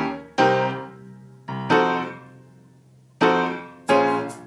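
Background piano music: slow chords struck and left to ring out, with a few short sharp clicks near the end.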